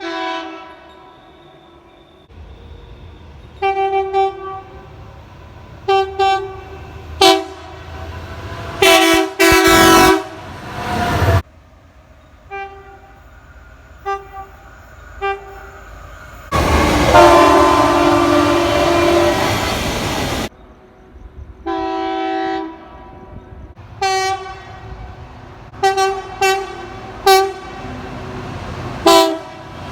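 Locomotive air horns blowing a series of short blasts, each a chord of several steady tones. About halfway through comes one long, loud blast of roughly four seconds, then more short blasts follow.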